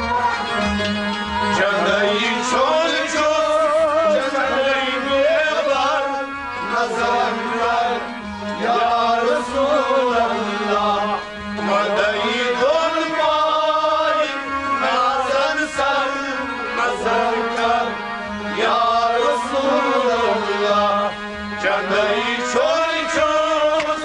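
A male voice sings a Kashmiri Sufi kalam in long, bending melodic phrases. It is accompanied by a harmonium and a bowed sarangi.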